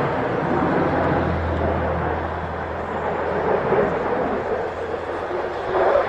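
Jet engine noise from an F-16 fighter flying over: a steady, rushing roar that swells near the end.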